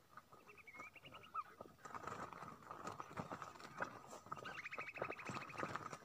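A small bird caught by the leg in a stick-and-noose snare, fluttering and struggling with scattered rustles and flaps. Two bursts of fast rattling bird calls, the first about half a second in and a longer one from about four and a half seconds. A faint steady high tone runs underneath.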